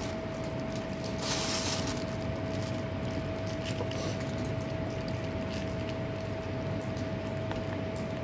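Small clicks and rustles of hands picking food from foil and plastic containers, over a steady high-pitched hum; a short hiss about a second in.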